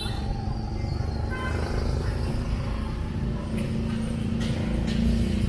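Steady low rumble of passing motor traffic, with a short horn toot about a second and a half in.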